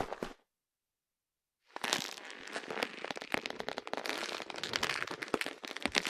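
Pleather handbag with a metal chain strap being handled, its material rustling and the chain clinking in a rapid run of small clicks. The sound stops just after the start and starts again after about a second and a half of silence.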